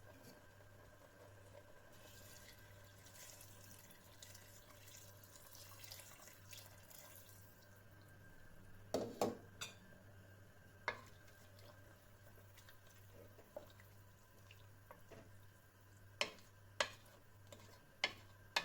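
Faint kitchen water sounds: a soft hiss of trickling water for a few seconds, then a scatter of short, sharp drips and taps, about nine in all.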